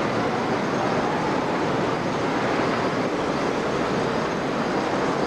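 Tram running along street track: a steady, even rolling noise with no distinct knocks or squeals.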